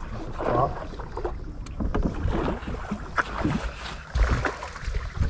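Wind rumbling on the microphone and water lapping against a bass boat's hull, with a few scattered small knocks.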